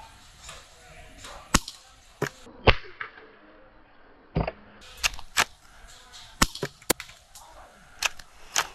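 Airsoft guns firing single shots: about a dozen sharp cracks at irregular intervals, the loudest a little under three seconds in.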